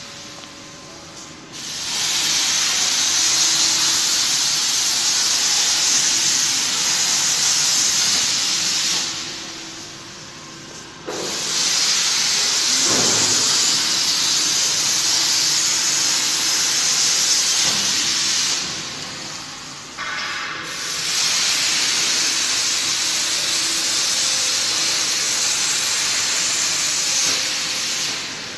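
CNC plasma cutting torch on an H-beam coping machine hissing in three long stretches of about seven to eight seconds, each starting and stopping with short quieter gaps between: successive plasma cuts into a steel beam.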